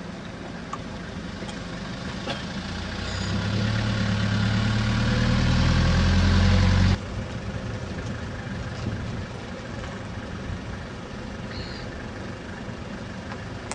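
A car engine grows steadily louder for several seconds, then cuts off abruptly about seven seconds in, leaving a steady background hiss.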